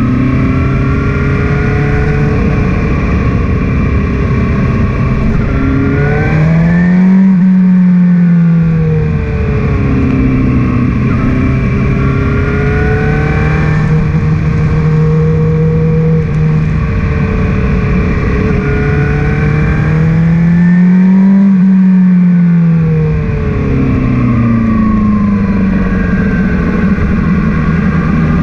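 Motorcycle engine running at road speed, twice climbing in pitch as the rider opens the throttle and then dropping back, with a steady rush of wind noise underneath.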